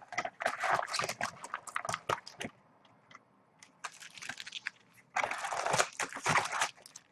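Crinkling and rustling of plastic wrap being torn off a Topps Chrome trading-card hobby box, with cardboard scuffs as the lid is opened and the foil packs are pulled out. It comes in irregular bursts, with a short pause about three seconds in and the densest crinkling about five seconds in.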